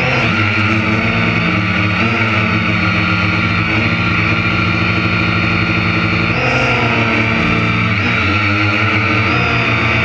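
Harvest machinery engine running steadily and loudly, its pitch dipping and recovering a few times as the load changes, with a constant high whine.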